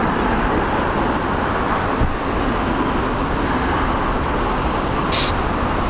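Strong wind buffeting the microphone over the steady roar of an Airbus A320's jet engines as it comes in to land in a storm crosswind.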